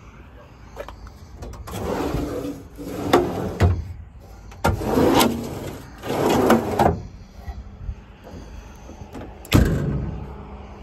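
Metal compartment doors on a truck service body being handled: several rattling, scraping bursts of about a second each, then one sharp slam near the end.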